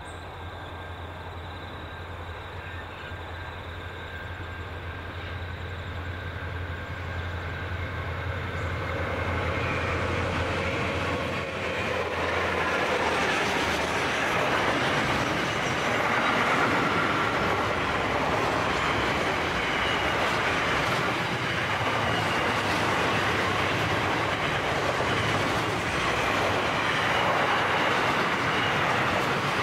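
Diesel locomotives rumbling with a steady low hum, then a long container freight train passing close. It gets louder from about ten seconds in, and its wagon wheels keep up a steady rolling and clattering on the rails.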